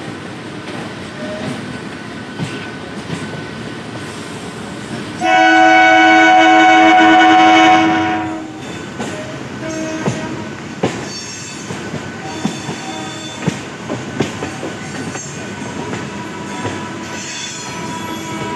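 Indian suburban electric multiple-unit train running with a steady rumble. About five seconds in, an electric train horn gives one long blast of about two and a half seconds. After it come irregular wheel clacks over rail joints and a brief high wheel squeal near the end.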